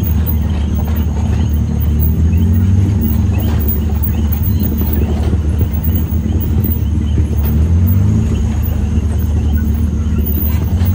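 Can-Am Maverick XRS Turbo RR UTV's turbocharged three-cylinder engine running under way with a low rumble. Its pitch rises twice, about two seconds in and again near the eighth second, as the throttle opens.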